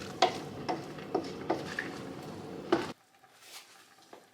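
A spoon stirring in a big pan of browning beef, peppers and chilies, knocking and scraping against the pan about five times over a steady background noise. The background cuts off abruptly about three seconds in, and fainter stirring sounds go on after it.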